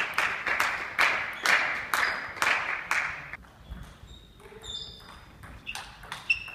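Table tennis ball clicking about twice a second for three seconds, echoing in a large hall. Then it goes quieter, with a few short high squeaks during play and one sharp click near the end.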